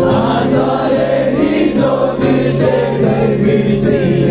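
Live band music over a large outdoor PA, recorded from the crowd, with many voices singing together over held chords.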